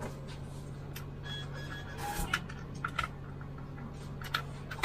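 Inside the cab of an Iveco Urbanway 12 diesel city bus: a steady low engine hum, with a scatter of sharp clicks and a brief faint high beep about a second and a half in.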